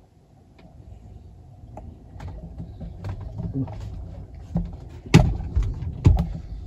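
A person moving about close to the microphone: low rumbling handling noise with scattered clicks and knocks, then two heavy thumps about five and six seconds in.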